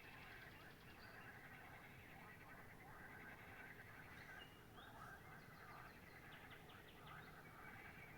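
Faint chorus of wild animal calls: a steady, fast-pulsing trill with short bird chirps and quick repeated notes over it.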